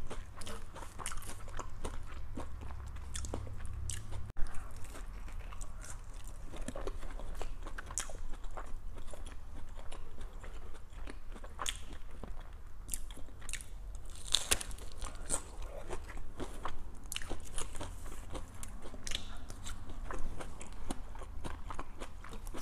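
Close-miked biting and chewing of a crunchy hard-shell taco: irregular sharp crunches of the corn shell between chewing sounds.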